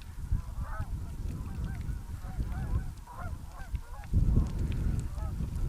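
Geese honking, many short repeated calls, some overlapping, over a steady low rumble that grows louder about four seconds in.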